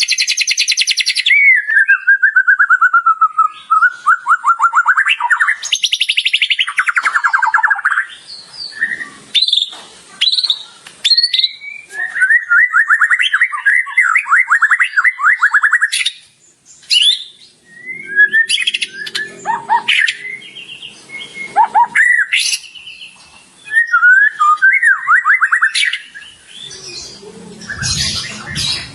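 White-rumped shama (murai batu) singing continuously in loud, varied phrases: fast trills, falling whistled glides and rapid chattering runs, with imitations of other birds' calls worked into the song.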